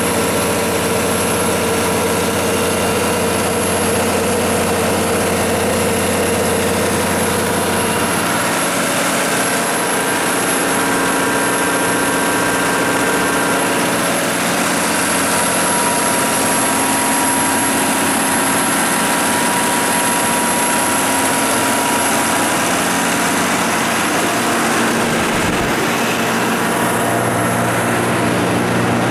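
Kohler diesel generator set running steadily, driven by its John Deere 6059T six-cylinder turbodiesel at 1800 rpm. The low hum weakens about eight seconds in and strengthens again near the end.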